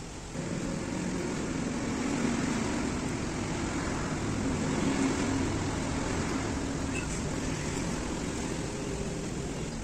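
A motor vehicle engine running steadily, coming up in level about half a second in.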